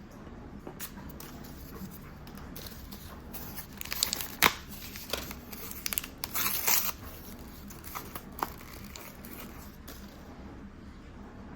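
Mystery-toy packaging being torn open and crinkled by hand, in a few sharp crackly rips clustered a few seconds in, followed by a couple of small clicks and rustles.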